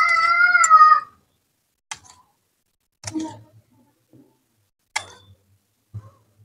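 A cat meows once, one long, steady call lasting about a second. A spoon then clinks a few times against the steel serving plate and glass bowls.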